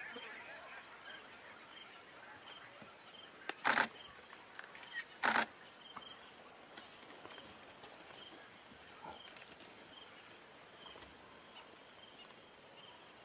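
Steady, high-pitched chirring of an insect chorus. Two short, sharp, loud sounds cut through it, about four and five seconds in.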